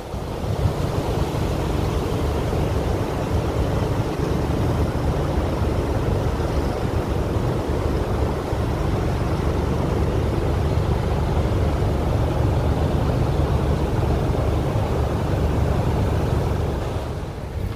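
Wind buffeting the microphone: a steady rumbling rush, strongest in the low range, with no clear engine tone.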